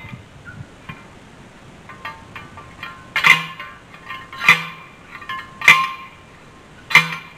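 Fence post being driven into the ground with a hand post driver: four metal clanks about a second and a quarter apart, each ringing briefly.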